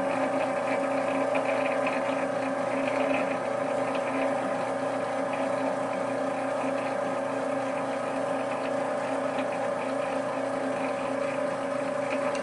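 Arcobaleno AEX18 tabletop pasta extruder running steadily in kneading mode, its motor humming evenly as the stainless steel mixing shaft turns semolina and water into crumbly pebbles of dough.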